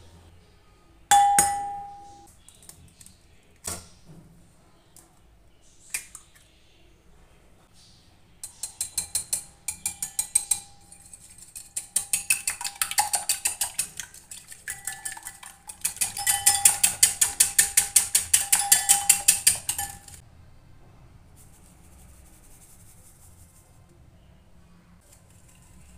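A wire whisk beating eggs in a glass bowl: rapid clinking of the whisk against the glass, several strokes a second, in three bursts with the bowl ringing at one pitch, the last and longest ending about 20 seconds in. Before the whisking come a few single sharp knocks on the bowl, the first and loudest ringing for about a second, as eggs are cracked on it.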